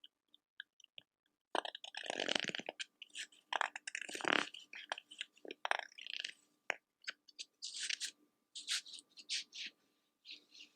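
Close-miked ASMR crackling. A few faint sparse ticks give way, about a second and a half in, to dense irregular runs of crackles and crunches that come in clusters.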